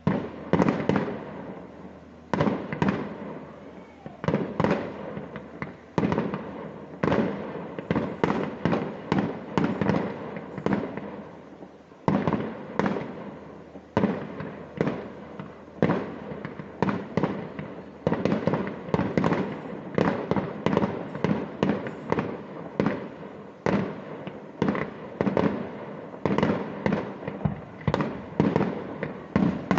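Fireworks display: a rapid, continuous barrage of aerial shell bursts, several loud bangs a second, each with an echoing tail.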